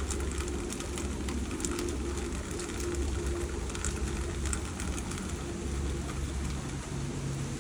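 Steady rain falling, a dense hiss of many small drop hits, with a steady low hum underneath.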